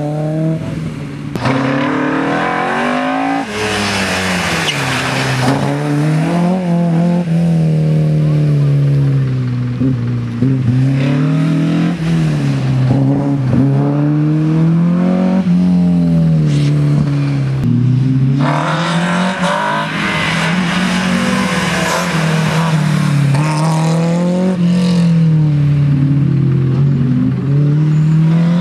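Modified Group H slalom race cars, among them Opel Kadett C coupés, driven flat out through the gates one after another. The engines rev hard and drop off again every two to three seconds as the cars accelerate and brake between cones.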